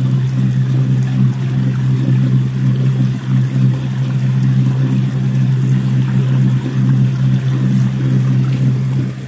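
Boat's outboard motor running at a steady pitch under way, with water rushing and splashing in the wake.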